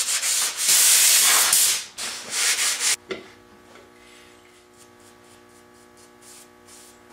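Sandpaper, 150-grit, rubbed by hand over a wooden chest back board in quick back-and-forth strokes for about three seconds, then stopping suddenly. A faint steady hum remains after the sanding stops.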